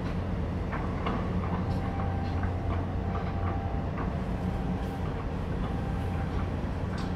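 Low, steady engine drone of a large container ship under way, with a few faint clicks and short high tones over it.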